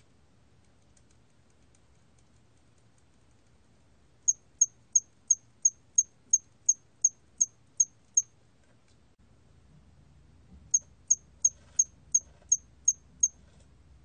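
털귀뚜라미 cricket singing at 27 °C: short, high-pitched chirps about three a second, in two runs. The first is about a dozen chirps and the second eight after a pause, with a few faint chirps before the first run.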